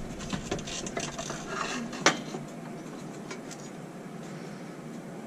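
Light clicks and metallic clinks of tools and small metal parts being handled during reassembly of an amplifier, with one sharp knock about two seconds in, then only a low steady background.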